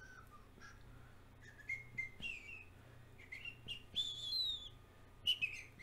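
A bird chirping: short whistled chirps and notes that glide downward, coming irregularly, the loudest about four seconds in.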